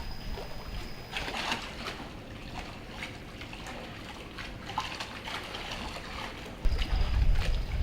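Water trickling and splashing in small scattered splashes. Near the end a loud low rumble comes in.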